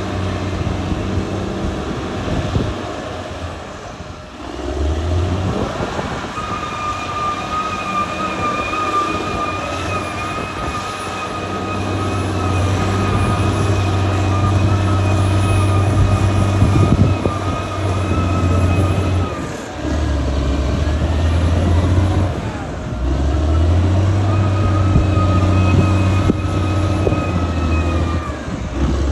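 Caterpillar D6R XL bulldozer's diesel engine running, its note dipping and picking up again a few times as it works. A thin, steady high whine comes in over it for long stretches and then drops away.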